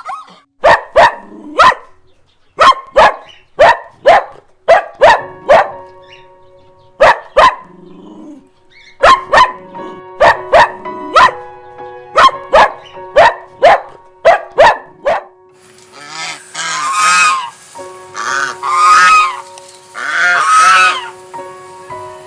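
A dog barking many times in quick runs of two to four sharp barks. From about two-thirds of the way in, a goose honking in several longer calls, with background music holding steady notes underneath.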